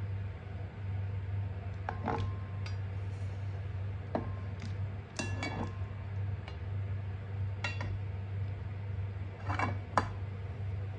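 Light metallic clinks from kitchen utensils: a stainless steel slotted skimmer and tongs knocking against each other and the pot as boiled instant noodles are drained. About five short clinks come spread out, the loudest near the end, over a steady low hum.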